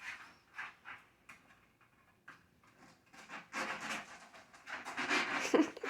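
Breathy, panting-like mouth sound effects made by a person: a few short puffs, then longer, louder huffs in the second half.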